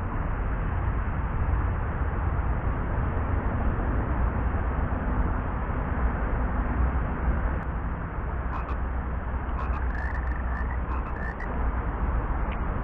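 Frogs croaking in a swamp, with a bout of quick repeated calls about two thirds of the way through, over a steady rushing noise with a heavy low rumble.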